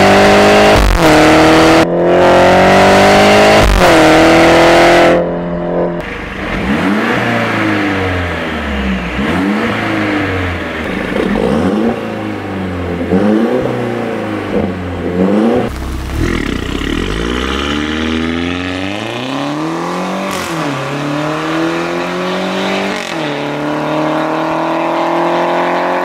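Mercedes-Benz GLC300 Coupe's 2.0-litre turbocharged four-cylinder through an iPE aftermarket exhaust in Sport mode. For the first five seconds it runs loud, pitch climbing in three steps with a drop between each, like upshifts under acceleration. After that it is quieter, with many quick rev blips rising and falling, then a few longer, slower revs near the end.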